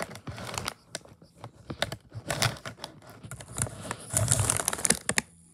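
Clothing rustling and fabric handling close to the microphone, with many small clicks and taps; the rustling grows louder and denser about four seconds in, then stops abruptly just before the end.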